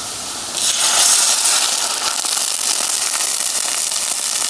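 Water poured into hot oil and frying onions in a pan: a loud burst of sizzling hiss about half a second in that carries on steadily as the water boils.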